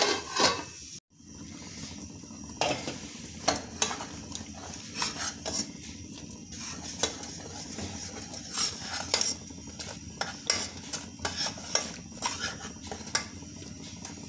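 A metal lid clattering onto a steel pot, then a steel spoon stirring melting jaggery syrup in a metal saucepan: repeated scrapes and clinks against the pan over the syrup's soft bubbling.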